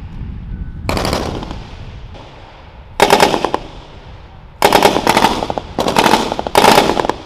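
Belt-fed machine guns firing short bursts of automatic fire: about five bursts, each under a second long, of rapid closely spaced shots. Each burst leaves an echo tailing off behind it.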